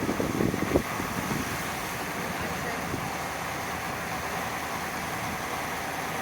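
Truck running steadily while driving slowly, heard as even engine and road noise from inside the cab.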